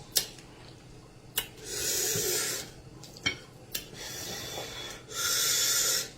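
Close-miked eating of amala and soup: three hissing slurps of about a second each, the middle one fainter, with a few sharp clicks between them.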